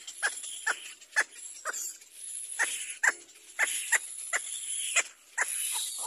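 Little black cormorant chicks begging to be fed: short, sharp cries repeated about two or three a second, with a short break about two seconds in.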